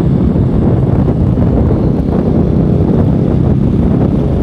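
Wind rushing over the microphone on a moving Honda motorcycle, loud and steady, with the bike's engine and the motorcycles around it running underneath.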